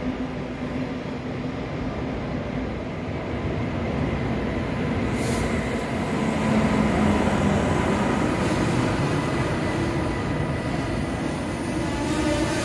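A train running through a station: a steady rumble with faint humming tones, growing louder towards the middle. There is a short high hiss about five seconds in.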